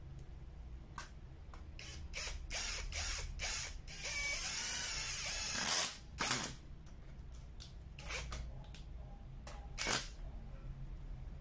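Clicks and knocks of a cordless impact driver and screw being handled and set against a log. A harsh noisy burst of about two seconds comes near the middle and ends in a loud click.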